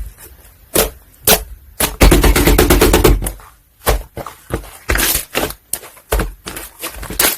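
Soft slime being pressed and stretched by hand, trapped air bubbles popping in sharp, irregular clicks. About two seconds in comes a dense rapid run of pops lasting over a second.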